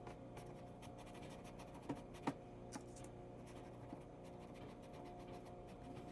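Paintbrush dabbing and stroking acrylic paint onto canvas: faint scratchy brush taps, with two sharper taps about two seconds in.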